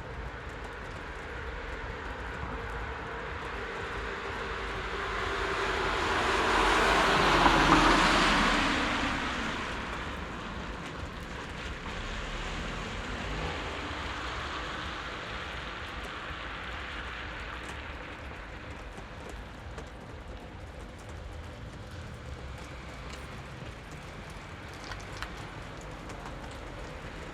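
A vehicle passes by over a steady background hiss: it grows louder to a peak about eight seconds in, its pitch dropping as it goes past, then fades away.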